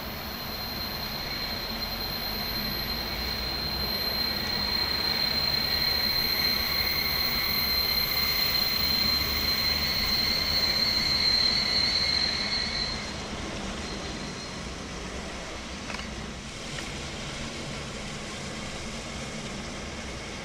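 DR class 01.5 express steam locomotive 01 0509 and its coaches running in with a low rumble, growing louder as it nears, under a steady high-pitched squeal from the train. About two-thirds of the way through, the squeal stops suddenly and the train runs on more quietly.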